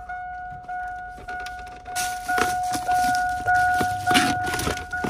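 A GMC pickup's dashboard warning chime with the driver's door open: one steady tone, each ring about half a second long with a short break between, repeating about every 0.6 s. From about two seconds in, the cardboard box of a double-DIN radio rustles and rattles as it is handled.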